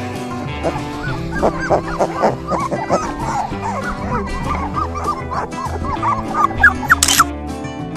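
Young puppies whimpering and yipping in a run of short high cries, louder near the end, over background music.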